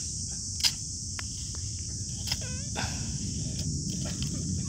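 Steady high-pitched chirring of insects, with a few short sharp clicks from a child's plastic sand toys.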